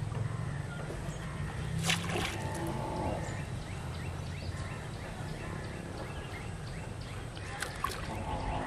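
Rural outdoor ambience: a steady low rumble, faint animal calls, and a sharp click about two seconds in, with a few more clicks near the end.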